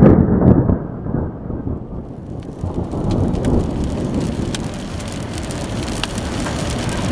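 A loud clap of thunder that rumbles and dies away over the first second or so. Then steady rain falls on the car, with scattered sharp drop hits.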